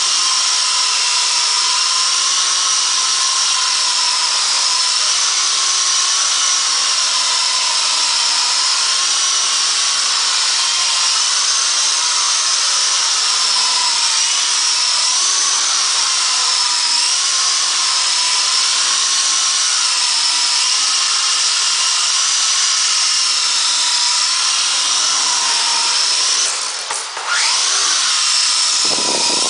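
Small electric motors and rotor blades of an indoor radio-controlled toy helicopter running in flight: a loud, high-pitched whine whose pitch wavers slightly as the throttle shifts, dipping briefly near the end.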